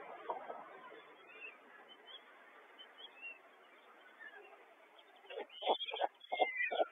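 Faint steady hiss on the white stork nest camera's microphone. About five seconds in there is a burst of loud, irregular sharp knocks and short calls from the nest as the adult stork bends down over its chicks.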